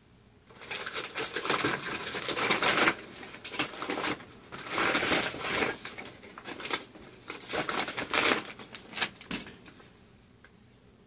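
A brown paper Amazon mailer being handled and opened: paper crinkling and rustling in several bursts, dying away near the end.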